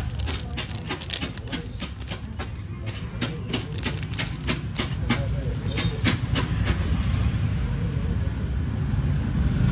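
Rapid, irregular clicks and taps from Zippo lighters being handled, which stop about seven seconds in. A low rumble of road traffic rises near the end.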